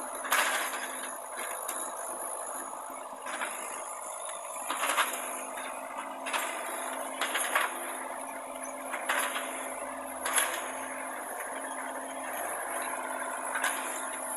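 Hitachi mini excavator's engine running steadily while its bucket knocks and scrapes through building rubble, with a sharp clatter of debris every second or two.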